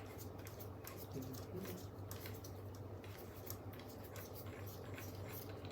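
Faint, light, irregular clicking of a bicycle chain and chain tool being handled as the broken chain is worked loose, over a steady low hum.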